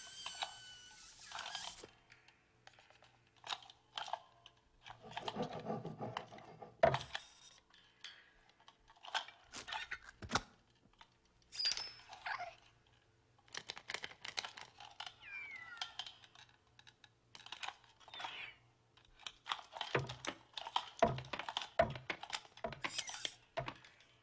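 Sparse squeaks, creaks and light taps from the animated desk lamps' spring-loaded metal joints and bases, the small lamp's hops tapping on the floor, with quiet gaps between and a busier run of taps near the end.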